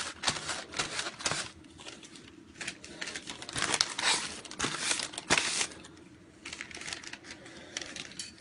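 Paper being crumpled and rustled by hand: a run of irregular crinkles and crackles.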